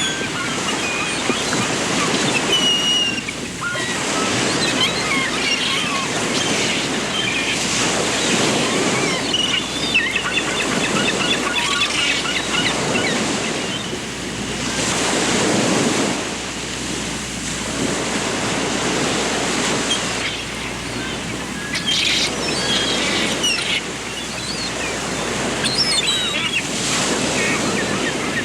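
Waves washing in swells that rise and ease every few seconds, with small birds chirping and trilling over them.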